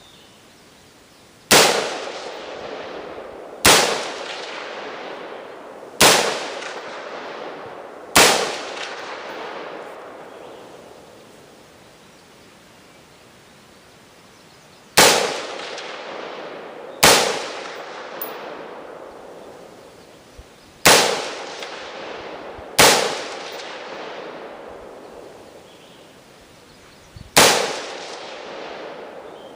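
Nine single rifle shots from a 5.56 AR-15 carbine, fired slowly about two seconds apart with a longer pause of several seconds midway. Each sharp crack is followed by a long echo dying away over a couple of seconds.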